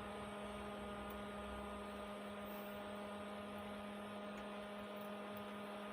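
Steady electrical mains hum from the powered-up Stranger PBT 800 mono power amplifier, a constant low buzzing tone with fainter higher tones above it.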